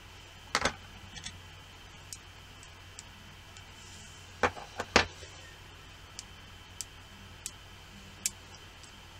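Sharp clicks and knocks of small magnets and metal pieces being handled, snapped together and set down on a tabletop: a double click about half a second in, the loudest cluster around the middle, then lighter scattered ticks.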